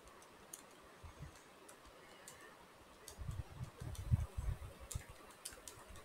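Faint scattered clicks of keys being pressed, with a run of soft low thumps on the desk from about three to five seconds in.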